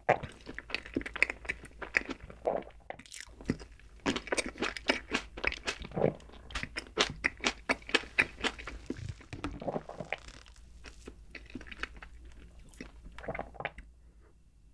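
A person chewing a mouthful of chocolate dessert, with many sharp, irregular crunches that die away near the end.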